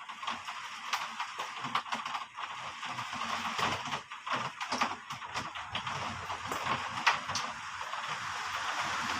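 Heavy rain falling, with many irregular drops tapping on a hard surface over a steady hiss that grows denser and more even near the end.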